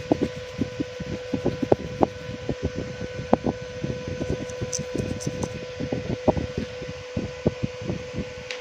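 Irregular light clicks and taps of hands and small tools working on a mobile phone's circuit board during cleaning, several a second, over a steady electrical hum.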